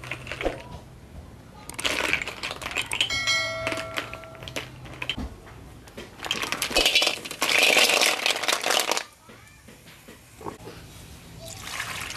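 Hard snail shells clicking and clattering against each other as they are handled in a woven basket. About six seconds in comes a louder rush of clattering as the snails are tipped from the basket into a steel wok, lasting a few seconds before it dies away.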